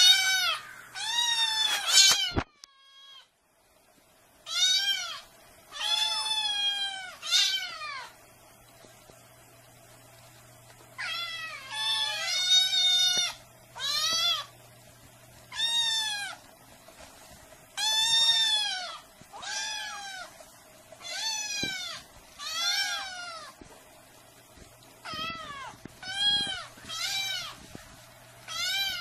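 Kittens meowing over and over: high-pitched calls, each rising then falling in pitch, following one another every second or two with a couple of short pauses.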